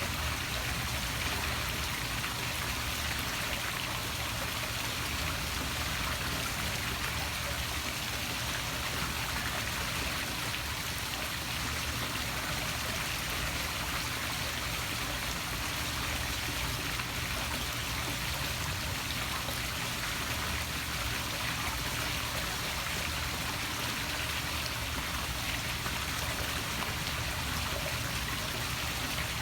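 Water from a poolside waterfall splashing steadily into a pool.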